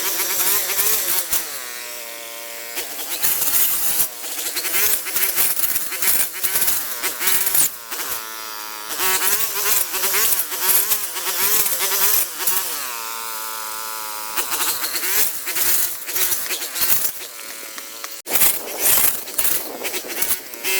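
A small motor buzzing with a wavering pitch, clearest in three stretches, over dense clicking and rattling throughout.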